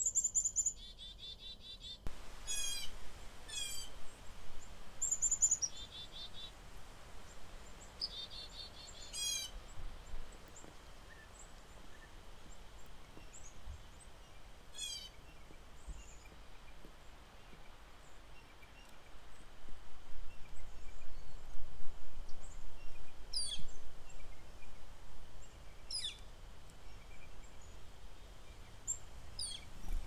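Small songbirds calling: high chirps followed by quick runs of buzzy notes several times in the first ten seconds, then a few thin descending whistles. Wind gusts rumble on the microphone, louder from about two-thirds of the way in.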